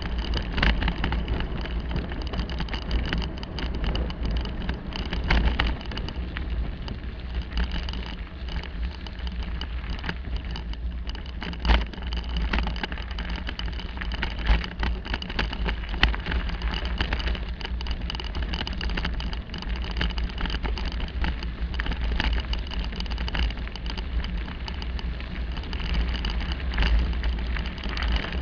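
Bicycle ride picked up by a camera mounted on the bike: a steady low rumble with a constant clatter of small knocks as the tyres and frame rattle over concrete paving blocks and then a gravel track, with two sharper bump knocks about 12 and 16 seconds in.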